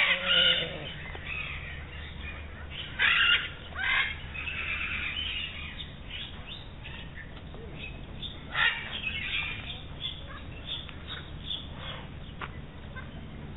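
Birds calling close by, a string of short, sharp calls, loudest about three seconds in and again near nine seconds, with smaller calls in between.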